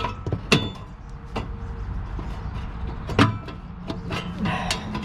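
Clicks and knocks of the RV water heater's cover being fitted and snapped into place, the loudest a little past three seconds in, over a steady low hum.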